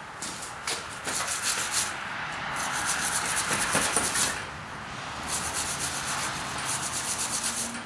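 A rusty blacksmith's vise screw being turned out through its threaded box, its corroded threads grinding and scraping in three spells of turning.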